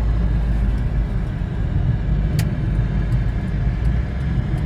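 Steady low road and engine rumble heard inside a moving car's cabin, with one sharp click about halfway through.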